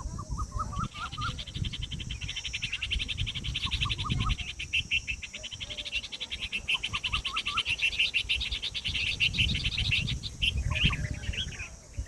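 A fast, dense insect-like trill starts about a second in and stops near the end. Over it come short runs of quick chirping bird calls, several times.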